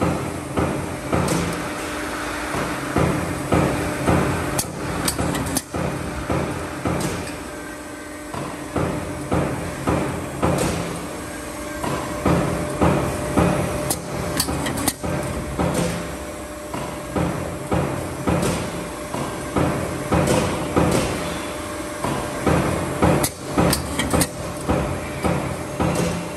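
Roll-forming line for metal ceiling carriers running, a steady motor hum under repeated metallic clanks and knocks from the hydraulic cutting head and the steel channels coming off the line. The clanks fall roughly once a second in the second half.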